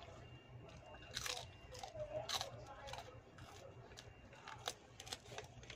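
A person eating rujak petis close to the microphone: two loud crunchy bites, about a second in and a little past two seconds, then a few smaller clicks of chewing.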